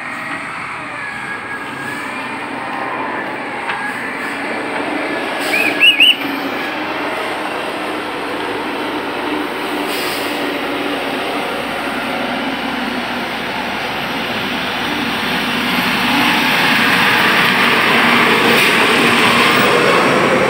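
Heavy diesel engine noise from a wheel loader towing a dump truck, growing louder from about fifteen seconds in as the dump truck rolls past close by. About six seconds in, three short high rising chirps are the loudest thing heard.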